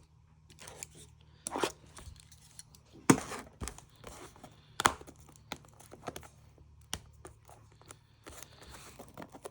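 A trading-card booster bundle box being torn open by hand: irregular tearing and crinkling of the packaging, with a few sharper snaps about three and five seconds in.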